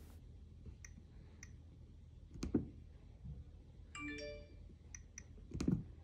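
Faint clicks of a Nest Learning Thermostat's steel ring being turned to scroll through its menu, with a couple of louder taps. A brief electronic chime sounds about four seconds in.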